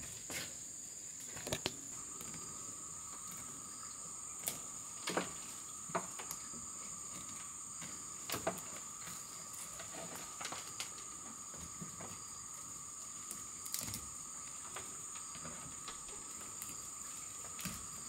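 Steady insect chorus, a high shrill drone joined by a second, lower steady tone about two seconds in. Over it come scattered light crackles and rustles as weeds are pulled by hand from the soil of a wooden planter box.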